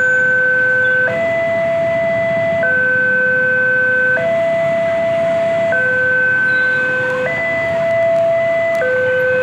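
Electronic warning alarm of a railway level crossing sounding a steady two-tone call, switching between a higher and a lower tone about every one and a half seconds, with no gap between them.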